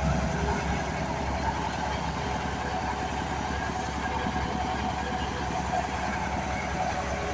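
Engine-driven rice threshing machine running steadily with an even, unbroken hum.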